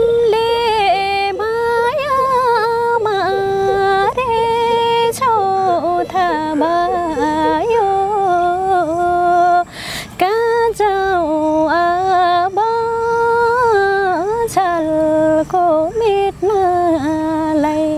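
A woman singing a Nepali song unaccompanied, with long held notes joined by ornamented slides in pitch. She takes a quick breath about ten seconds in and holds a long final note near the end.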